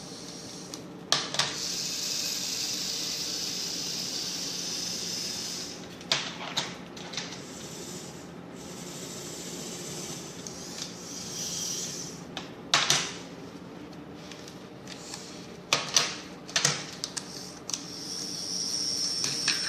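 Small electric motors of a homemade science-kit claw machine whirring in runs of a few seconds, twice, with sharp clicks and clacks from the mechanism in small clusters, over a steady low hum.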